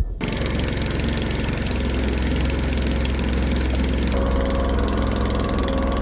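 A motorboat engine runs steadily with a low, even rumble. It cuts in suddenly right at the start.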